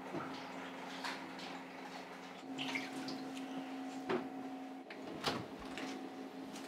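Restaurant kitchen room tone: a steady low hum with a few light knocks and clatters of utensils and containers being handled.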